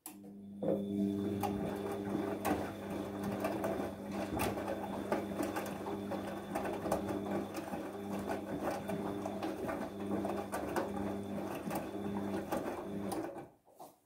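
Bosch front-loading washing machine's drum motor turning the drum through a load of wet laundry in water, a steady hum with a slightly wavering pitch and scattered clicks. It starts about half a second in and stops shortly before the end.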